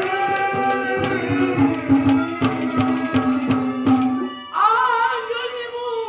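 Live folk stage music: a harmonium holds steady chords under regular hand-drum beats, and about four and a half seconds in a male singer comes in, singing loudly over it.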